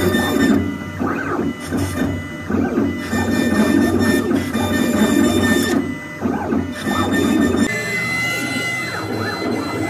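KRAL CNC router carving a relief pattern into a wood panel: the spindle and bit cutting, with the motors whirring and changing pitch as the head moves in short strokes. About eight seconds in the sound changes to a steadier, higher whine.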